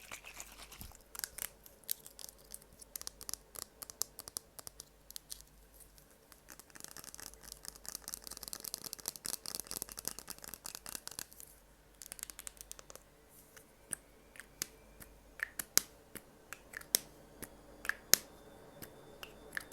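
Close-miked ASMR tapping and scratching: a dense run of small clicks and taps, then a few seconds of high, scratchy rustling. After a short lull come sparser, sharper taps, the loudest near the end.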